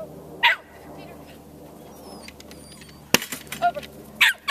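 Dog barking: one sharp bark just after the start, a sharp knock about three seconds in, then a quick run of barks near the end.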